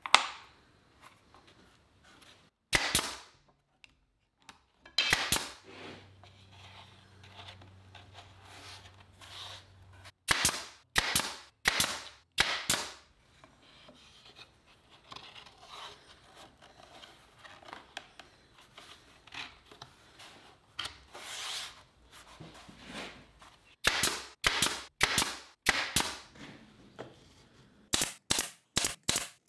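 A small pneumatic nailer fires nails into wooden molding, each shot a sharp crack. There are single shots a few seconds apart, a quick run of four about ten seconds in, and rapid strings of shots in the last six seconds.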